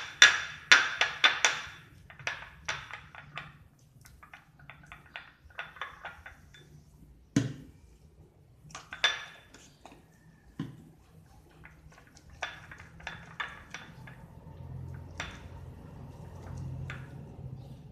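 Plastic spoon stirring and scraping slime in a ceramic bowl, clicking and tapping against the bowl: a quick flurry in the first two seconds, then scattered taps with a few sharper knocks around the middle. A low hum comes in during the last few seconds.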